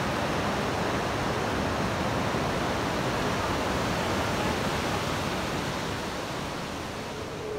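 Steady rush of fast-flowing whitewater tumbling over rocks, easing slightly near the end.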